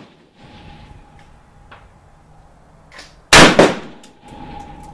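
A single shot from a modified AK-47 pistol in 7.62x39 about three seconds in, loud and sharp, followed about a third of a second later by a second loud crack.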